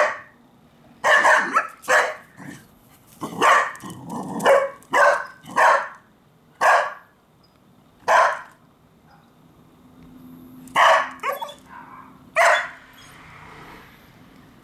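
A Cardigan Welsh Corgi barking, about a dozen loud barks. They come in quick runs over the first several seconds, then only a few more, spaced a second or more apart. She is barking up at a squirrel she is driving off her territory.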